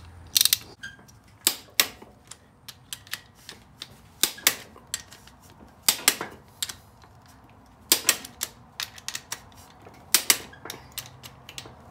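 Clicker torque wrench ratcheting and clicking in short irregular clusters as the cylinder head bolts are tightened down to 62 ft-lb.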